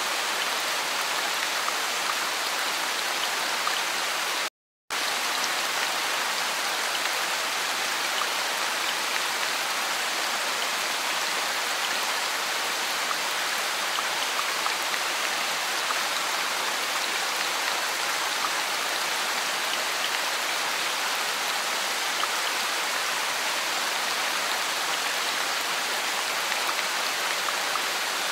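Steady rain falling, an even hiss with faint drop ticks. It is broken by a half-second dropout to silence about four and a half seconds in.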